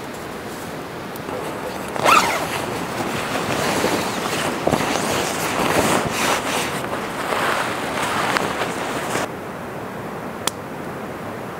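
Sleeping bag fabric rustling and swishing as the bag is shaken open and climbed into, starting sharply about two seconds in and stopping abruptly about nine seconds in, over a steady background hiss.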